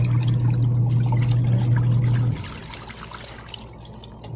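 Twin-tub washing machine's wash motor humming steadily while soapy water sloshes and splashes in the wash tub. About halfway through, the motor hum cuts off and only the water's splashing goes on, more quietly.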